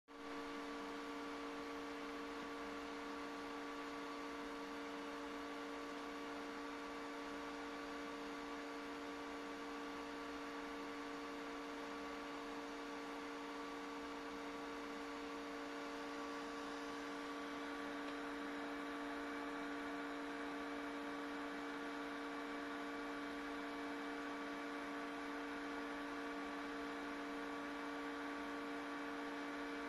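Steady electrical hum made of a few held tones over a faint hiss.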